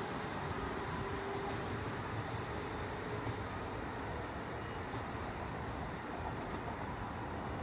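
Electric train running away into the distance: a steady rumble with a faint steady tone that fades out about three seconds in.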